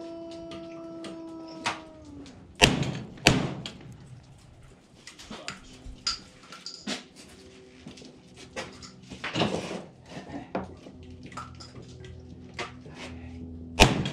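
Gunshots on a cowboy action shooting stage: two loud shots a little under a second apart about three seconds in, scattered clicks and clatter of gun handling in between, and two more shots in quick succession near the end. A steady pitched tone fades out about two seconds in.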